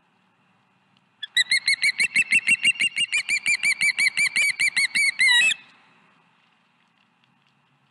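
Osprey calling: a loud run of whistled chirps, about six a second, lasting about four seconds and ending in a quicker flurry.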